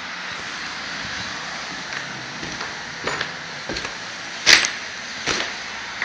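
Footsteps on a debris-strewn floor: four sharp steps, the loudest about halfway through, over a steady hiss.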